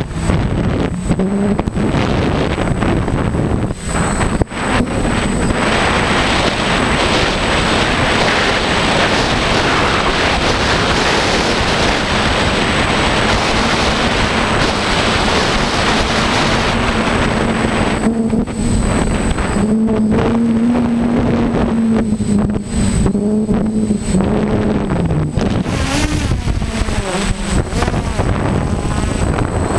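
DJI F550 Flamewheel hexacopter's electric motors and propellers humming in flight, heard from a camera on the craft under heavy wind buffeting on the microphone. Past the middle, the motor pitch wavers up and down for several seconds as the motors work against gusts.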